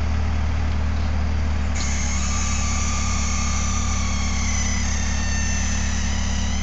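Bobcat S150 skid steer's diesel engine running steadily. About two seconds in, a high hydraulic whine joins it as the lift arms raise the bucket.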